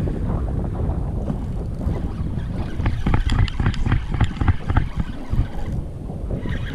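Wind rumbling on the microphone, with a run of sharp irregular clicks from about halfway through.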